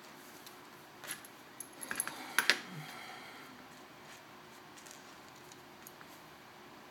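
A handful of small, sharp clicks and taps from handling a freshly reassembled iPhone 4S, bunched between about one and two and a half seconds in, the last pair the loudest.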